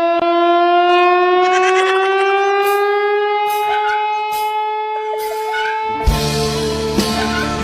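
One long horn blast held for about six seconds, its pitch slowly rising. Near the end, music with a heavy beat comes in.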